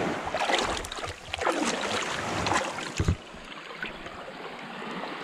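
Shallow water splashing and sloshing as a wooden stick is jabbed and dragged through it, with a sharp knock about three seconds in, then quieter water.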